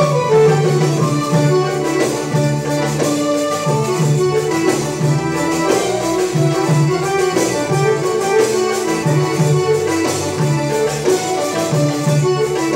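A live Arabic band playing baladi music: goblet-drum (darbuka) strokes keep a steady rhythm under electric bass and keyboards carrying the melody.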